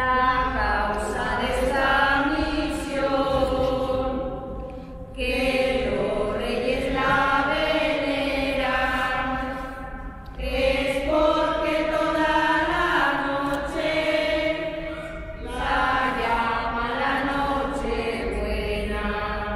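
A group of women singing a shepherds' song together in long phrases of held notes, four phrases in all, each about four to five seconds long.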